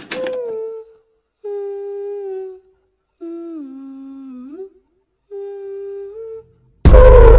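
A person humming four short notes with pauses between them. The third note dips and slides back up at its end. Loud music with a heavy bass cuts in abruptly near the end.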